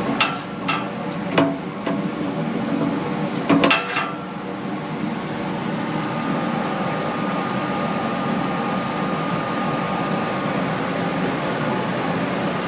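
Steady hum of running boiler-room machinery. A few sharp metallic knocks come in the first four seconds, then only the steady hum with a thin, even whine on top.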